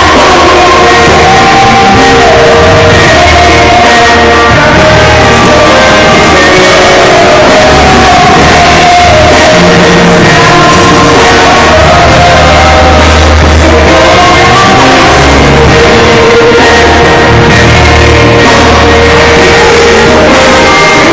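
A live band playing a song, with a man and a woman singing into microphones over electric bass, keyboards and drums. It is recorded very loud, near the top of the recorder's range.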